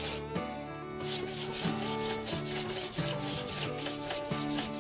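Hand scraper worked in quick back-and-forth strokes along a glued bamboo rod blank, about four strokes a second with a short pause near the start, taking off excess glue and enamel. Background music with a melody plays underneath.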